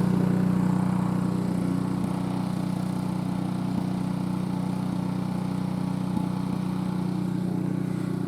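Gasoline snowblower engine running steadily at one constant speed, a continuous low hum with no change in pitch.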